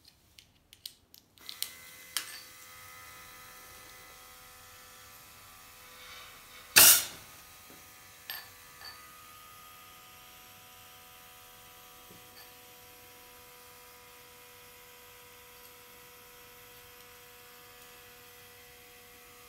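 Light clicks of wires and battery contacts, then a small electric air pump starts about a second and a half in and runs with a steady hum. About seven seconds in there is a short, loud blast of compressed air from a compressor blowgun, the blast that ejects burning steel wool from a launch tube.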